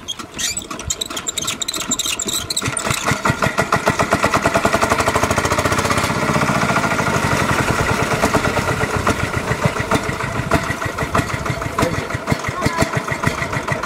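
A small engine running off-screen with a fast, even chugging, growing louder over the first few seconds and then holding steady.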